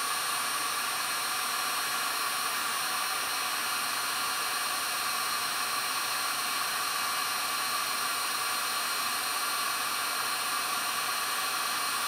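Genesis electric heat gun running steadily on a heat-shrink crimp connector: a steady rushing hiss from its fan with a faint whine.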